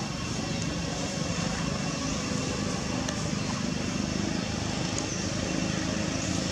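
A steady low rumble like a motor vehicle's engine running at a distance, with a constant outdoor background hiss.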